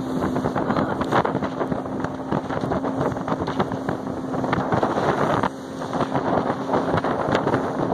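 Motorboat under way: a steady engine hum under heavy wind buffeting the microphone. The level drops suddenly about five and a half seconds in, then climbs back.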